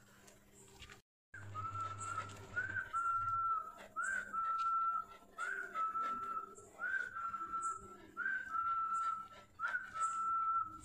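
A whistled call repeated about seven times, roughly every second and a half, each a short upward slide into a held note.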